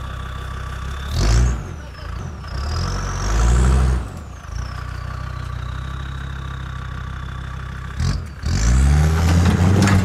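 Land Rover Discovery Td5's five-cylinder turbodiesel idling and being revved in bursts: a short rev about a second in, a longer one around three seconds, then back to idle, and revving again for the last two seconds. A high whistle rises and falls with the revs.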